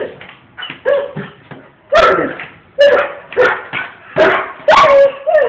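German Shepherd-type dog giving about seven short, high yelping barks and whines in quick succession: excited greeting of its owner arriving home.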